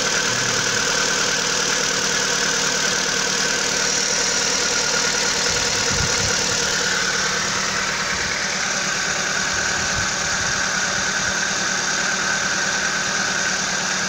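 Kia DOHC 16-valve four-cylinder engine idling with a fast, steady ticking: the tick that comes on for about a minute after a morning start.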